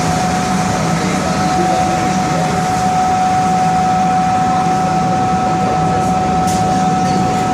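Montreal Metro MR-63 subway car in motion: a steady whine with a fainter, higher tone above it, over the low hum and rumble of the running train. The rider takes the whine for one of the overhead air fans, a mechanical fault.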